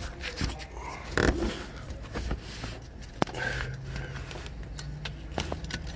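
Metal clicks and scrapes of a breaker bar and socket working a serpentine belt tensioner while the drive belt is slipped off an AC compressor pulley, with a sharp click about three seconds in. A low steady hum runs through the second half.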